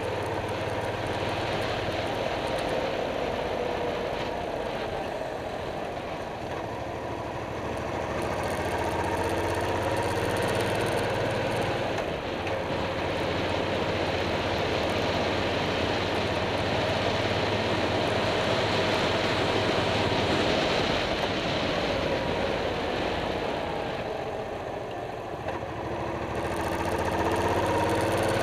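Suzuki Boulevard C50's 805 cc V-twin engine running under way, heard from a camera clamped to the front bumper, with wind and road noise. It holds steady, eases off twice (about a quarter of the way in and near the end), and picks up again each time.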